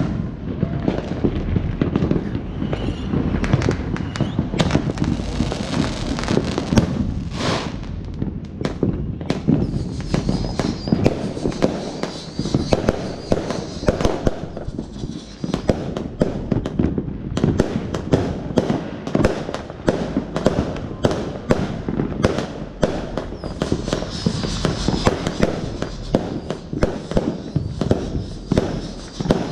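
Fireworks going off in a dense, unbroken run of bangs and crackling pops, many a second, as aerial shells burst overhead.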